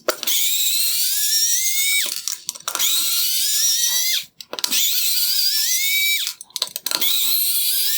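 Cordless power driver backing out the four T20 Torx screws, one after another: four bursts of motor whine, the pitch rising through each one before it cuts off.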